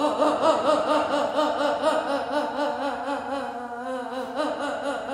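A woman's long, sustained moaning voice, its pitch trembling rapidly up and down several times a second as her jaw shakes uncontrollably while tension is released during massage.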